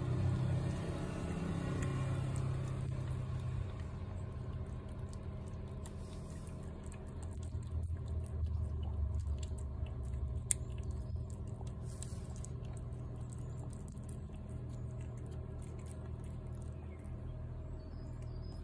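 Low rumble of passing motor traffic, swelling at the start and again about eight seconds in. Under it, a cat chews and licks wet food from a plate, with faint small ticks.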